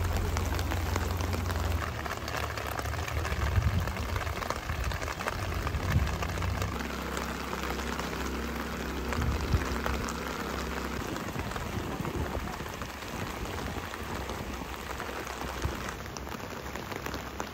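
Steady rushing noise of floodwater from the overflowing Schmutter river running through the flooded streets. A low rumble sits under it for the first several seconds.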